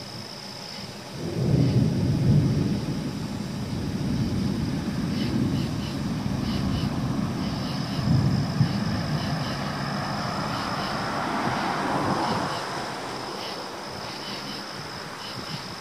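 Thunder from a nearby lightning strike cracks in suddenly about a second in, then rumbles and rolls for about ten seconds before fading. Near the end of the rumble, a car passes on the road with a rising tyre hiss.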